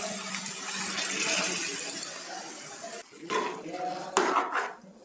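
Hot, wet khichuri of rice, lentils and vegetables poured into a steel kadai of fried egg masala, sizzling with a steady hiss. From about three seconds in come a few sharp clinks and scrapes of metal on the pan.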